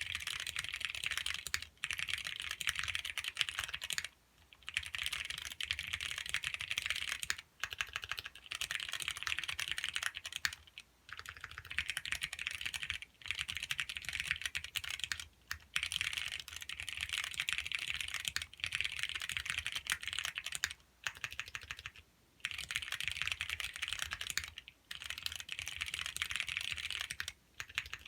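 Fast, continuous typing on a Whale custom ergonomic keyboard with a clear case: dense runs of key clicks broken by brief pauses every few seconds.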